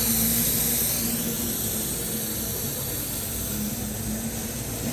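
Aerosol can of artificial snow spray hissing steadily, its level slowly falling as the can empties.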